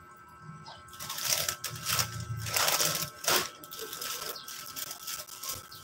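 Plastic snack wrappers crinkling and rustling as they are handled, a run of crackles starting about a second in.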